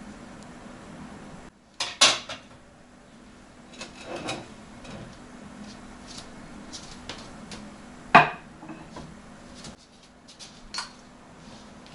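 Dishes and cutlery clinking in a few sharp knocks, the loudest about two seconds in and again about eight seconds in, over a steady low hum.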